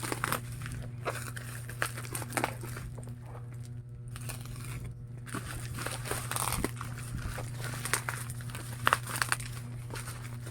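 Packaging being handled during unboxing: crinkling and rustling with scattered sharp clicks and taps, over a steady low hum.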